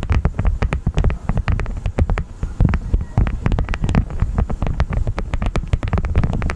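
Beeswax honeycomb handled close to the microphone: a dense run of irregular crackles and clicks over a low rumble of handling.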